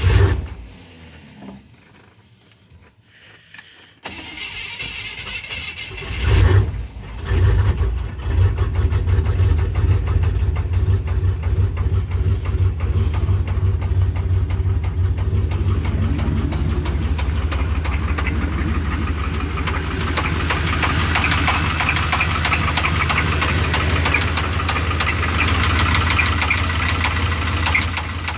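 A 1988 Chevrolet C1500's 305 V8 is cranked and catches about six to eight seconds in, then runs steadily with a rhythmic engine knock, the sound of a bad engine knock before an oil change.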